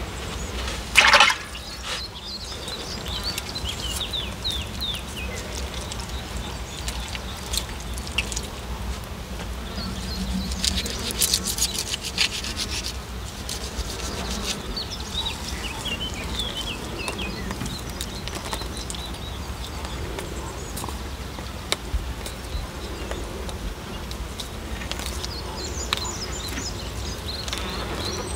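Outdoor ambience with flies buzzing and short high chirps, while a knife scrapes and cuts at a plucked duck carcass. The knife makes scattered clicks and scrapes, and one short loud noise comes about a second in.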